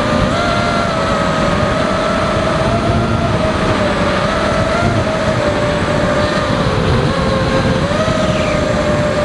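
Brushless motors and propellers of a ZMR X210 racing quadcopter whining steadily under a rush of wind, heard from its onboard camera. The pitch dips briefly about seven seconds in, then comes back up.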